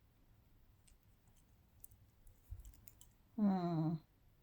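Faint, scattered clicks of costume jewelry pieces being handled, then, about three seconds in, a short wavering hum from a woman's voice lasting about half a second.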